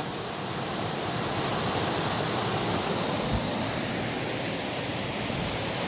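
Rushing river water: a waterfall's steady, even roar of falling water.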